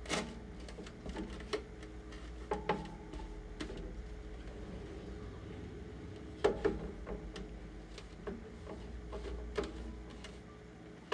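Rag rubbing and wiping over a plastic armor piece, wiping off a weathering wash, with irregular taps and knocks as the piece is handled. The loudest knock comes about six and a half seconds in, over a low steady hum.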